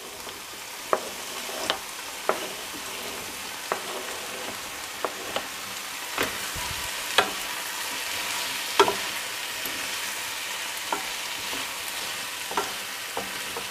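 Frying pan of tomatoes and onions sizzling steadily as diced raw potatoes are scraped in from a cutting board with a wooden spoon, with scattered light knocks as the cubes and spoon hit the pan and board.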